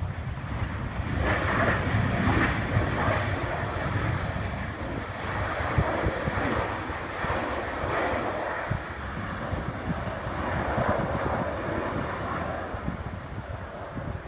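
Light airplane's engine running, a continuous rumble with propeller noise that swells about a second in and then holds fairly steady.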